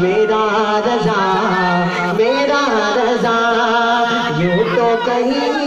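A man's solo voice singing a naat, an Urdu devotional poem in praise of the Prophet, into a microphone, in long held notes that waver and slide between pitches.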